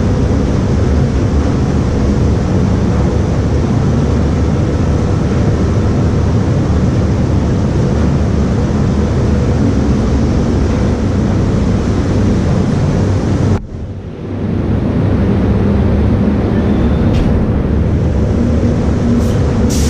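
Steady rush of a paint spray booth's ventilation fans and airflow, briefly dropping out about two-thirds of the way through before resuming.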